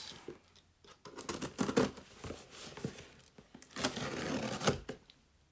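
An Amazon shipping package being torn open by hand: irregular tearing and crinkling in two main spells, about a second and a half in and again around four seconds in.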